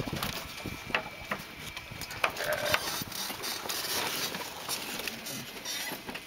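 Scattered knocks, clicks and rustles of people handling a floatplane's cabin, door and wing strut at a dock, with the engine stopped.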